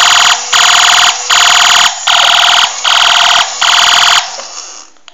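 Battery-operated toy police car's electronic sound chip playing a loud, buzzy alarm tone in repeated pulses, a little over one a second, that stops about four seconds in.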